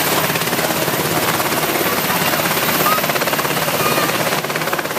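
Helicopter flying close by, its rotor blades beating in a fast, steady chop.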